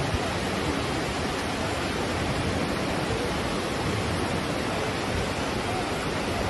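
Steady, unbroken rushing noise of storm water, from heavy rain and floodwater.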